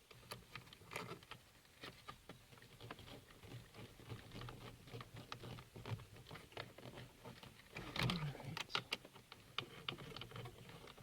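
Light, irregular clicks and taps of a screwdriver and plastic dash trim as a screw is worked back into the instrument panel surround.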